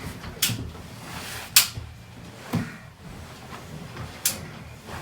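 Several short, sharp cracks and knocks during a chiropractic adjustment, from the joints and the treatment table. The loudest and sharpest comes about a second and a half in, a duller knock about a second later, and another sharp one near the end.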